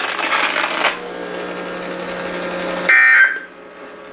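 NOAA Weather Radio's SAME digital data tones: after the broadcast voice stops about a second in and a low steady hum of dead air, one loud, harsh, warbling electronic burst about half a second long sounds near the end. It is the first of a series repeating about every second and a half, the coded burst sent at the end of the test tornado warning message.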